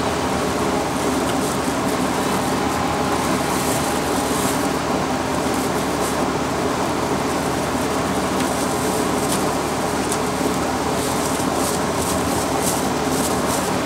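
Steady mechanical drone with a low hum, even in level throughout. Faint short scratchy sounds come in the second half.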